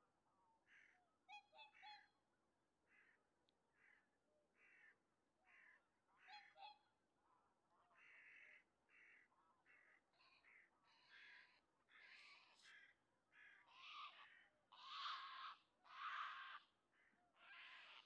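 A flock of greater white-fronted geese calling, short yelping calls one after another, faint at first and growing louder and more frequent in the second half.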